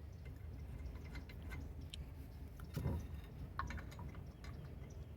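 Light metallic clicks from lug nuts being fitted as a car's wheel is put back on, with a dull knock about three seconds in, over a low steady hum.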